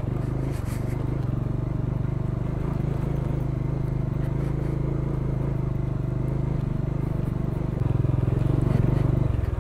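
Motorcycle engine running at low, steady revs while the bike rolls slowly over a rough dirt track, getting a little louder about eight seconds in.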